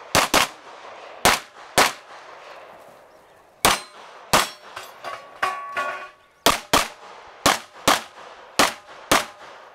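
Handgun shots fired rapidly in pairs, about a dozen in all, as double taps on each target of a USPSA stage. There is a break of about two seconds in the middle before the pairs resume.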